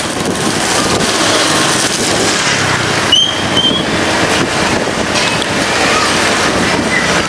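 Heavy rain falling: a steady rushing noise. A brief high squeak cuts through about three seconds in.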